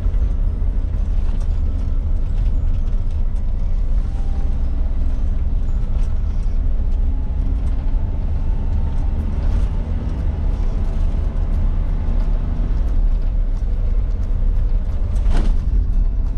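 Cabin noise of a 1996 Suzuki Jimny JA22 under way: steady low engine and road rumble from its 660 cc three-cylinder, with small rattles, over background music.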